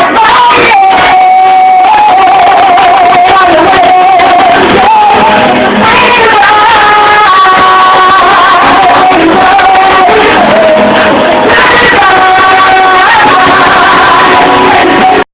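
A song with a singer holding long, wavering notes over the accompaniment, played loud; it cuts off abruptly at the end.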